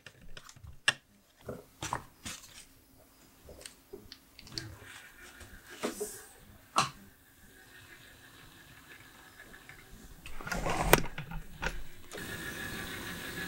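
Plastic clicks and knocks as 3D-printed turntable parts are handled and set down and a power connector is plugged in, then a louder rattling knock. Near the end a small electric gear motor starts up and drives the turntable's plastic gears with a steady whirring whine.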